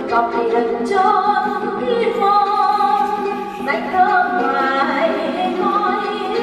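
Traditional Vietnamese water-puppet theatre music: a voice singing long, gliding, held notes over instrumental accompaniment.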